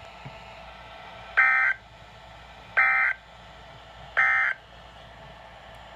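NOAA Weather Radio's digital end-of-message (EOM) code, sent as three identical short, harsh data bursts about a second apart over a faint radio hiss. These bursts mark the end of the warning message.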